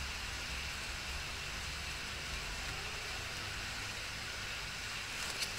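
Steady background hiss with a faint low hum, and a couple of soft ticks near the end.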